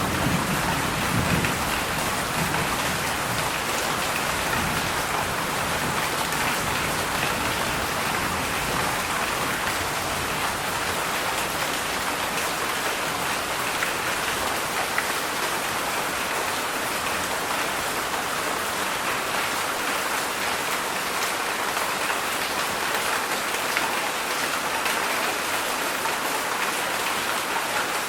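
Heavy summer rain falling steadily, a dense even hiss of drops on surfaces, with a brief low rumble in the first couple of seconds.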